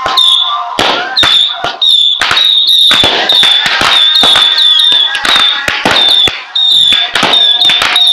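Aerial fireworks going off in rapid succession: a dense string of sharp bangs and pops, with short high whistles repeating about twice a second.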